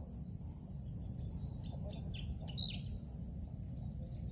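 Steady high-pitched drone of crickets and other insects, with a few short bird chirps about two seconds in, over a low rumble.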